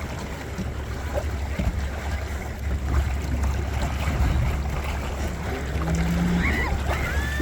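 Wind buffeting the microphone with water rushing along the hull of a Windrider 17 sailing trimaran under way, a steady low rumble. A few short high chirps come near the end.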